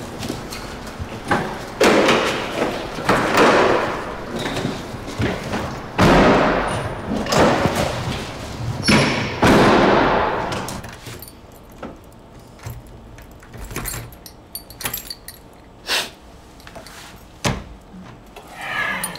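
Several heavy slams and thuds, like vehicle doors being shut, each echoing and dying away in an underground car park. After that it is quieter, with a few sharp clicks near the end.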